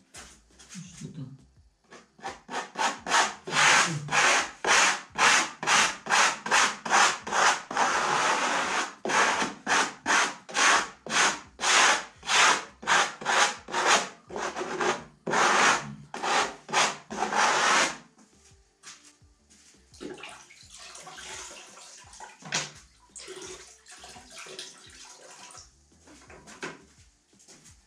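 Flexible plastic spatula scraping in quick back-and-forth strokes over a textured decorative-plaster panel, about two strokes a second, skimming off excess tinted facade varnish to bring out the relief pattern. The strokes stop about 18 seconds in, leaving only faint rubbing and handling sounds.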